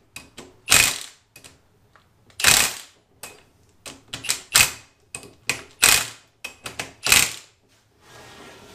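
Cordless driver with a socket run in a dozen or so short trigger bursts, each a quick rattling burst, driving the ring-gear bolts into a Honda K-series AWD differential.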